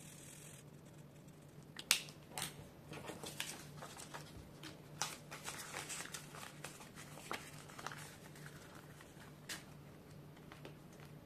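Small handling sounds of a paper challenge card and a clear plastic envelope being picked up, shuffled and pressed flat: scattered soft clicks and crinkles, the sharpest about two seconds in, over a faint steady low hum.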